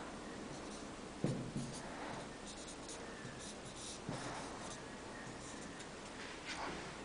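Blue Edding felt-tip marker drawing on a whiteboard: short, irregular squeaky strokes of the tip across the board, with a soft knock about a second in.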